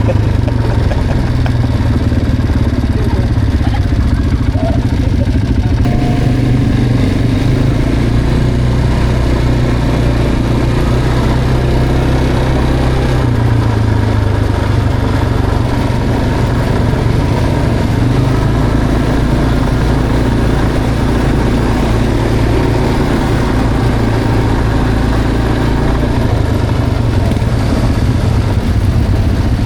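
Quad bike engine running steadily during a ride, its pitch shifting a few times as the throttle changes.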